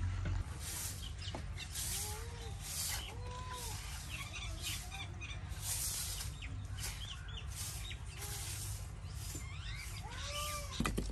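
Farmyard animals and birds calling: several short rising-and-falling calls among many small bird chirps, with irregular soft swishing noises.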